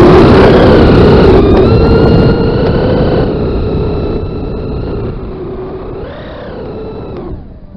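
FPV quadcopter's brushless motors and propellers whining, the pitch gliding up and down with the throttle over heavy wind rush. The sound swells briefly near the end, then drops away sharply.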